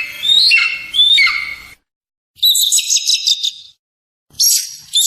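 Eagle calls. First comes a run of high squealing calls that each rise briefly and then drop in pitch. After a short gap there is a quick high chattering series, then a second gap and another run of sharp high notes near the end.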